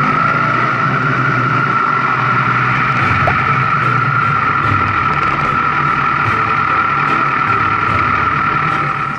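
Steady engine and road noise of a vehicle on the move, with a constant high drone over a low rumble.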